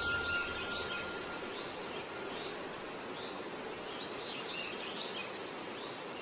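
Steady outdoor background noise with faint bird chirps now and then.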